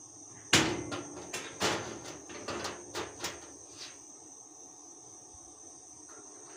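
Motorcycle roller-chain door latch clanking and rattling against a metal door as the chain is dropped into place over the bolt. There is one sharp clank about half a second in, then a run of lighter clanks and rattles that dies away after about four seconds, over a steady high trill.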